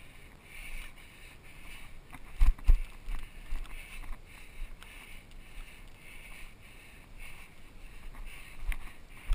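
Footfalls and rustling on straw bales, heard through a body-worn camera, with a soft rustle about twice a second. Two heavy thumps come about two and a half seconds in.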